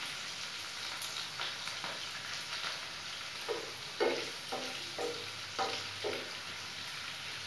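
Chopped green capsicum sizzling steadily as it fries in hot oil in a pan. From about halfway through, a spatula stirs it in short strokes against the pan, about two a second, each with a brief ring.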